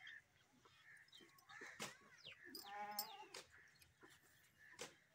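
A short bleating call from a farm animal about three seconds in, among a few faint clicks and knocks.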